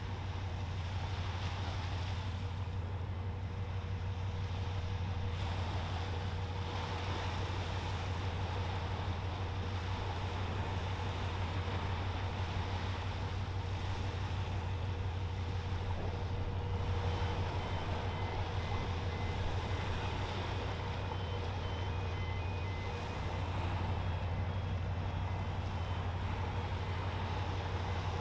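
Steady low engine drone of a passing ro-ro freight ferry, with a faint steady whine above it. From a little past halfway, faint short high beeps repeat intermittently.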